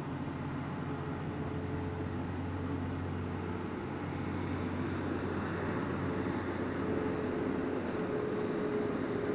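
Steady hum of a small motor, with a whine that grows stronger in the second half.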